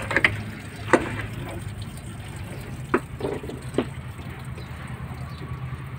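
Several sharp metallic clinks and knocks of tools on the radiator and its fittings as it is being unbolted, over a steady low hum.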